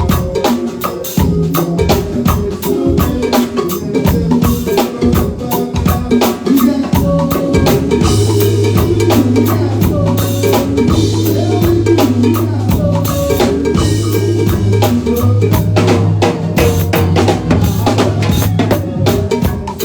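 Live band playing with a drum kit keeping a steady, busy beat of snare and bass drum, under long held low notes through the middle.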